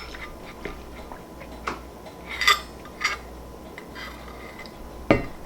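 A few separate light clinks and taps of tableware, like a utensil against a dish, the loudest one ringing briefly, followed by a duller knock near the end.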